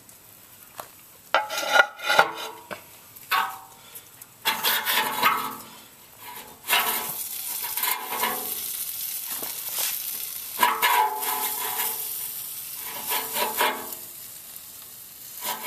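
Metal rotisserie spit and forks being worked loose from a cooked pork roast: a series of irregular scrapes and rubs, each a second or two long.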